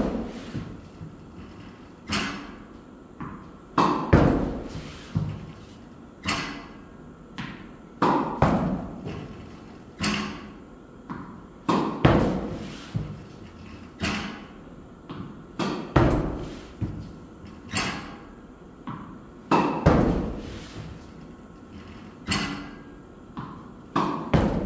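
Tennis balls struck with a racket about every two seconds, each hit a sharp knock with smaller knocks of the ball bouncing around it, echoing in a small indoor court.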